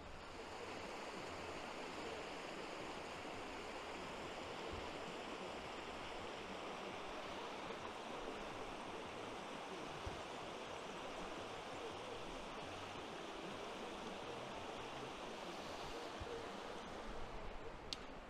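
Loddon River flowing: a steady rush of running water.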